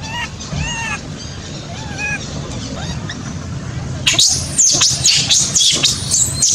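Monkeys calling: a few short rising-and-falling calls, then from about four seconds in a loud run of high-pitched cries that slide down in pitch.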